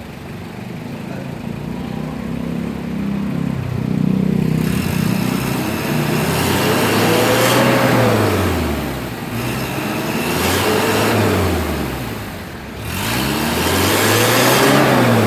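Mitsubishi L300's diesel engine idling, then revved up hard and let fall back three times, each rev rising and dropping in pitch over two to three seconds, with a rush of exhaust noise at each peak.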